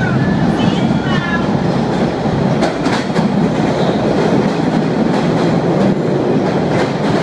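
MBTA Orange Line subway train pulling into an underground station and running past the platform: a loud, steady rumble of the cars going by, with a few sharp clacks from the wheels about three seconds in.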